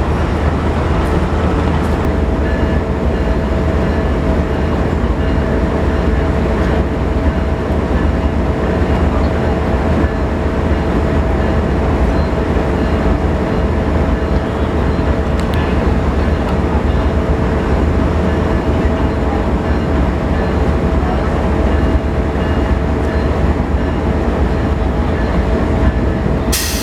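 Train noise: a steady low rumble with a constant hum.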